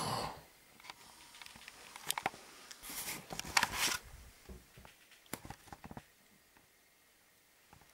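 Handling noise of a handheld camcorder: scattered small clicks and taps, with brief rustles of fabric about three seconds in.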